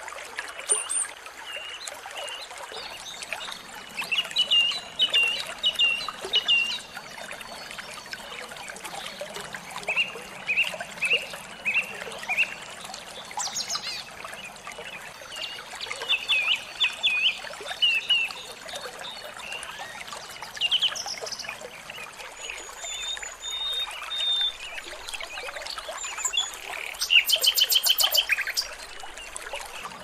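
Small songbirds calling in quick groups of sharp chirps, with a fast, loud rattling trill near the end, over the steady rush of running water.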